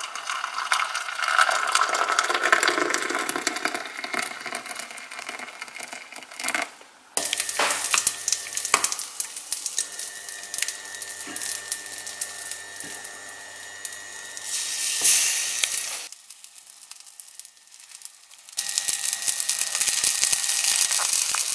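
Hot water poured into a cup onto coffee, then a few light clinks and knocks. Near the end, slices of batter-coated suluguni cheese sizzle in hot oil in a frying pan.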